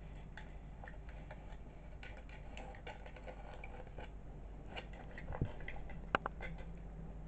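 A kitten playing on a blanket beside a cardboard carton: scattered light taps and scratches, with two louder knocks about five and six seconds in.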